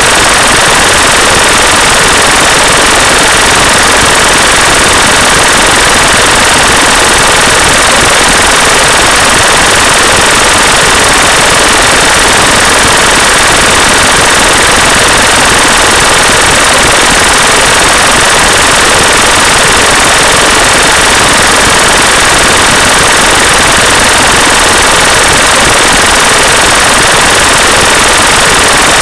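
Loud, steady noise that does not change in pitch, rhythm or level: the masking sound layer of a subliminal track, under which the affirmations are hidden.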